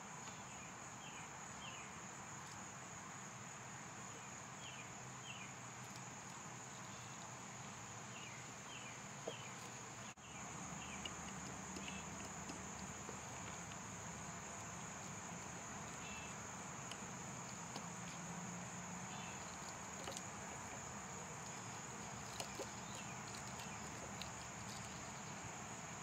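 Steady high-pitched insect drone with scattered short chirps, breaking off briefly about ten seconds in, plus a few faint clicks.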